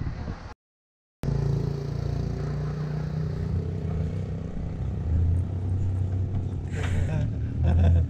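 A motor vehicle engine running steadily close by, a low hum with a held pitch that swells a little near the end. Before it, half a second of rushing wind and boat noise cuts off into a moment of silence.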